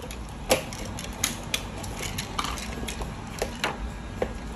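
Plastic parts of a yellow Transformers robot toy clicking and snapping as they are twisted during transformation: a run of irregular sharp clicks, the loudest about half a second in.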